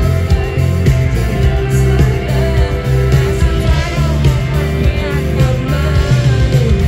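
Live band playing through a stage PA: electric guitars, bass and drums, with a woman singing lead into a microphone.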